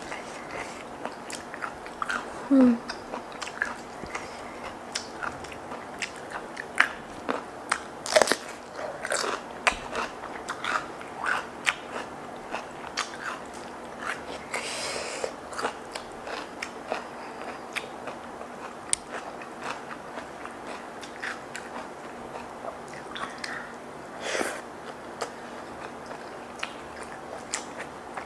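Close-up eating sounds of fried chicken in sambal and petai beans: biting and chewing, with many short wet clicks and crackles and a few louder crunches.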